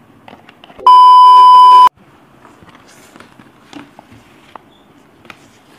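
A single loud, steady electronic beep lasting about a second, starting about a second in and cutting off abruptly: an edited-in censor bleep. Otherwise only faint clicks and rustles.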